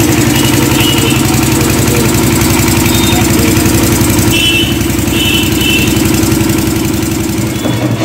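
A motor running steadily with a fast even pulse, and a few short high tones over it about four to six seconds in.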